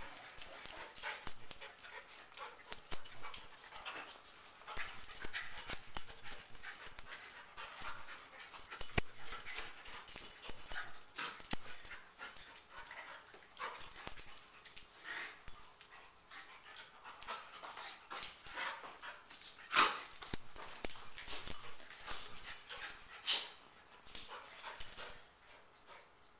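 Two dogs, a black-and-tan Shiba Inu and a tan dog, play-wrestling on a tile floor: scuffling with many quick clicks and taps of claws on tile, mixed with the dogs' short vocal noises.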